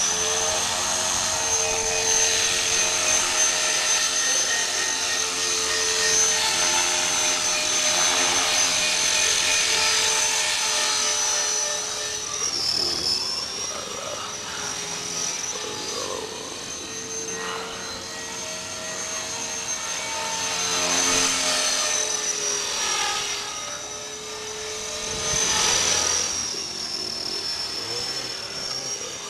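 Blade 400 3D electric RC helicopter in flight: a steady high motor and rotor whine. The pitch dips briefly about 13 seconds in and again near the end, and the sound swells twice in the second half as the helicopter comes nearer and moves away.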